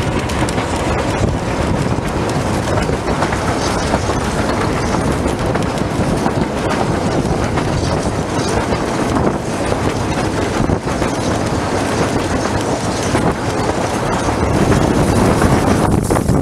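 La Trochita, a 750 mm narrow-gauge steam train, running along the line, heard from its wooden coaches: steady running noise of wheels on rails that grows a little louder near the end.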